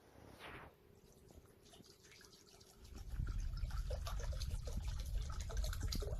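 Water trickling and dripping into a container as it is filled, with a low rumbling from about three seconds in as the flow gets heavier.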